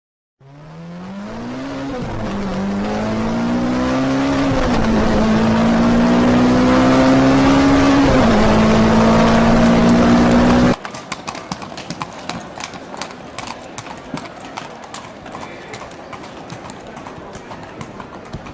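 A car engine accelerating hard, its pitch climbing and then dropping at each of three gear changes. About eleven seconds in it cuts off abruptly to the clip-clop of a horse's hooves on a hard surface.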